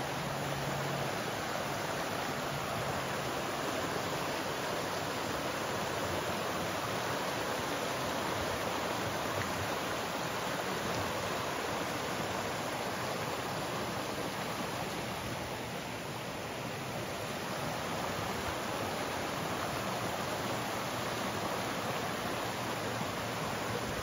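A rocky mountain creek rushing over small rapids and ledges: a steady wash of water noise, easing slightly a little past the middle.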